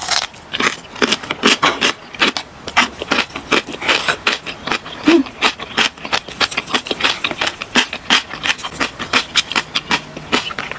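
Close-miked chewing and mouth sounds of eating kimchi and ramen noodles: a dense, irregular run of wet clicks and smacks.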